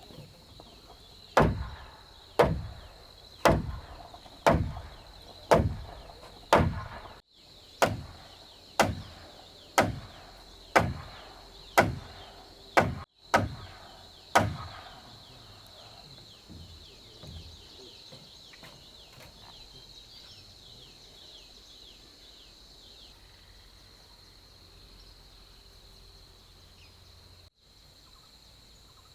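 A run of about thirteen heavy blows on wood, roughly one a second, each ringing out briefly, stopping about halfway through. A steady high-pitched whine continues underneath.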